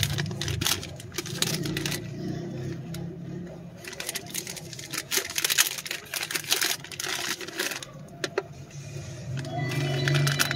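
Plastic packaging pouch crinkling and crackling in the hands as it is torn and pulled open, in quick irregular bursts, over a low steady hum.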